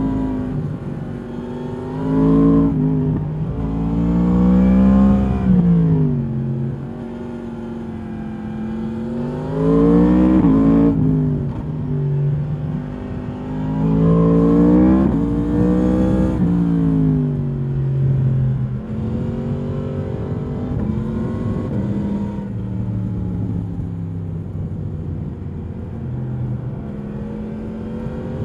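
2022 Yamaha MT-10's crossplane inline-four on its stock exhaust, heard from the rider's position while riding. The engine climbs in revs and drops back several times over the first part, then runs steadier at lower revs near the end.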